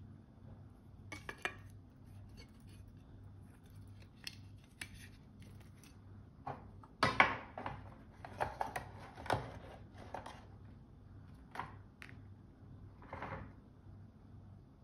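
Handling sounds as a leather-strapped wristwatch is packed back into its metal tin presentation box: soft rustles and light metallic clinks and taps, with the loudest clatter about seven seconds in.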